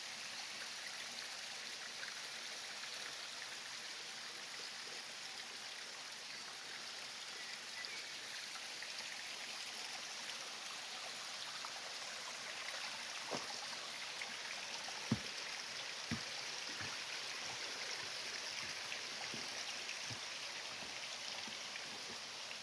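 Mountain stream running steadily, a continuous rush of water. A few brief knocks come in the second half, the sharpest just past the middle.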